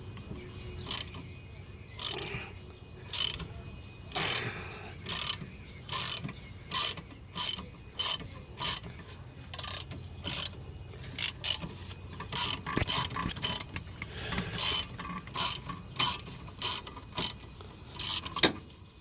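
Ratchet wrench clicking in short repeated strokes, about one and a half a second, as a bolt holding the rear parking brake cable bracket is loosened.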